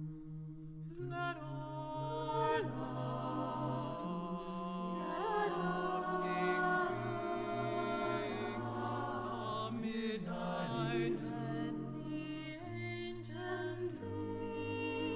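Mixed-voice a cappella group singing a slow jazz ballad in close harmony over a sung bass line, the chords swelling in about a second in and changing every second or two, with some voices sliding between notes.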